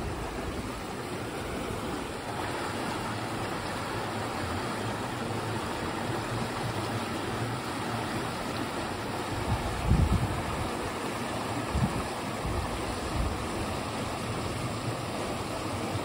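Shallow stream rushing over rocks and small rapids, a steady rush of water. A couple of brief low thumps about ten and twelve seconds in.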